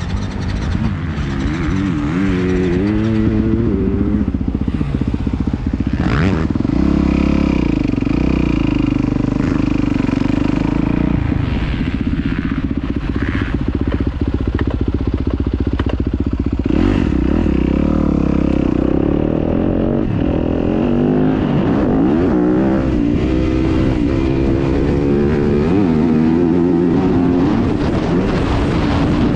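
Yamaha motocross bike engine being ridden hard on a dirt track, heard close up from the rider's helmet camera. Its pitch climbs and drops again and again with the throttle and gear changes, rising in steps in the first few seconds as the bike pulls away.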